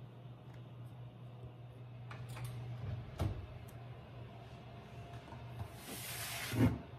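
Kitchen oven door being opened, with a sharp clunk a little after three seconds in, then a brief scraping rush near the end that ends in a knock. A steady low hum runs underneath.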